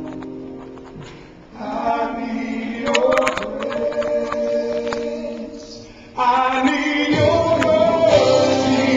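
A gospel worship song sung by a choir, in a fuzzy recording. The singing comes in phrases, with a short lull just after a second in and a louder, fuller passage starting about six seconds in.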